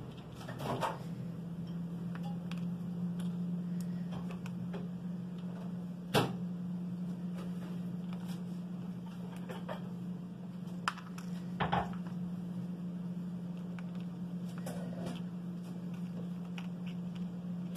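A steady low hum with scattered light clicks and taps as craft pieces such as cowrie shells and gems are handled and set down; the sharpest click comes about six seconds in.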